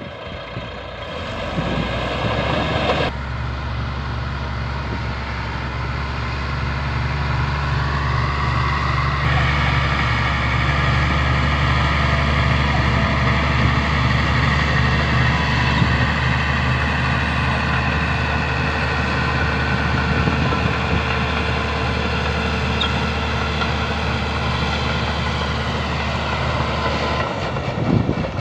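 Heavy diesel engine of earthmoving equipment running steadily under load, its pitch climbing about eight seconds in as it revs up.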